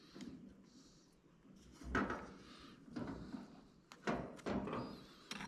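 Small parts being handled: a series of separate knocks and clicks, about one a second, with light rattling in between, as a clip and clamp are worked onto a fuel pump assembly.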